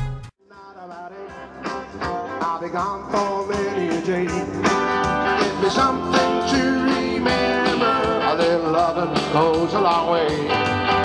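Upbeat guitar-band music with a singer, coming in just after a brief break near the start.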